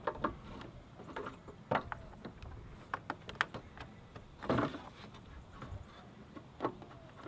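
Irregular clicks, taps and knocks of hand work on a Vespa LX's plastic rear fender and its screws, with a louder knock about four and a half seconds in.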